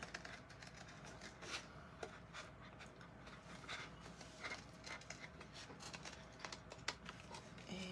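Small scissors snipping through a paper doily sheet in faint, short, irregular cuts, with light paper rustle as the sheet is turned.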